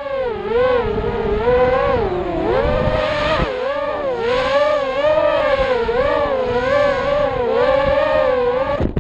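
FPV racing quadcopter (Thrust-UAV Riot 250R) with its motors and propellers whining. The pitch rises and falls about once a second with the throttle, and the sound cuts off suddenly near the end.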